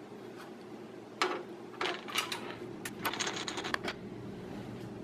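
A screwdriver backing a screw out of a steel PC case's rear slot-cover bracket: a series of short metallic clicks and scrapes, with a quick run of ticks near the middle.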